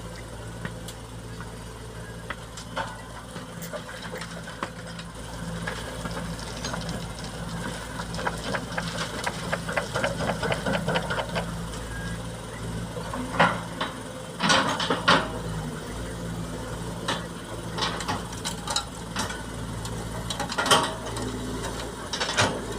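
Diesel engines of an excavator and a dump truck running steadily, with scattered clanks and rattles. A few louder knocks come about 13 and 15 seconds in and again near 21 seconds in.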